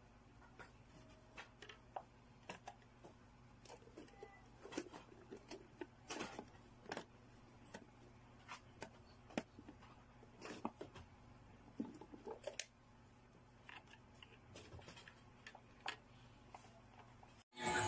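Faint, scattered clicks and knocks of an electric kitchen meat grinder's plastic lid, bowl and blade being handled and fitted together.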